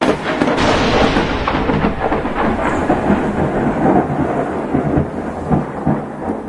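Thunder breaking suddenly and rolling on, over the steady sound of rain.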